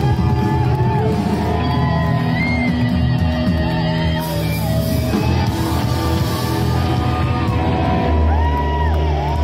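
Rock band playing loud and live: guitar and drums, with sliding notes held over a full low end.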